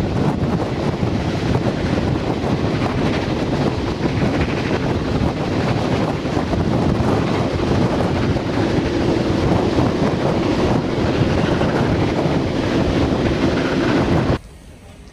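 Wind rushing over the microphone out of a moving train's carriage window, over the running rumble of the train; the sound cuts off suddenly near the end.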